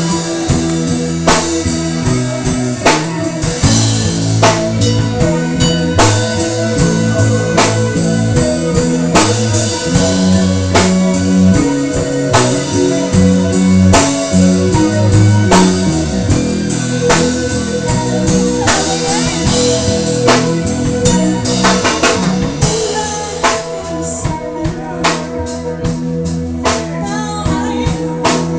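Rock band recording playing, with a drum kit keeping a steady beat under guitars and bass. It eases off slightly near the end.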